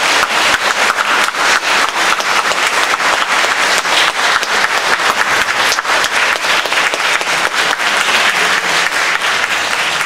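Audience applauding steadily, many hands clapping together in a welcome.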